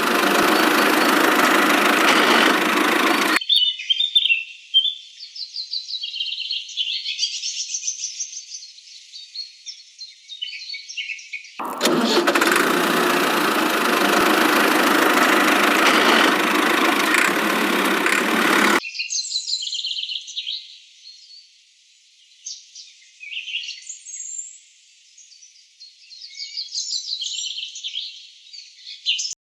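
Small birds chirping and twittering, high and thin. Twice a loud even rushing noise covers everything for a few seconds: once at the start, lasting about three seconds, and again about twelve seconds in, lasting about seven seconds.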